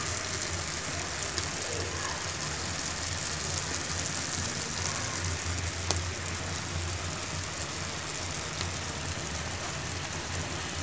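Steady hissing noise with a low hum under it.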